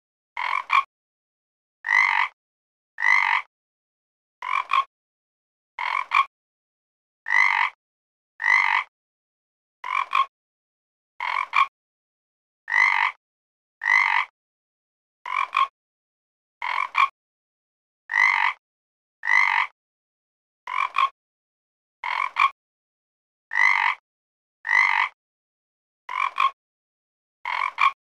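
A frog croaking over and over: short croaks, one about every second and a half, with silence between them.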